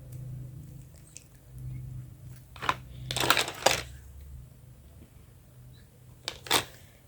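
Small plastic toy kitchen pieces being handled, with a few sharp clicks, a short clatter about three seconds in and two more clicks near the end, over a low steady hum.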